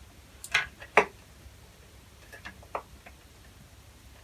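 Light clicks and taps from hand-soldering on a circuit board, the soldering iron and wires knocking against the board: two sharp taps about half a second and one second in, then a few fainter ones.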